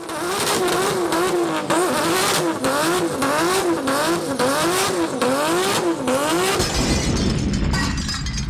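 Outro sound effect of a car engine revving up and down over and over, its pitch wavering in quick swings, then giving way to a deep rumble near the end.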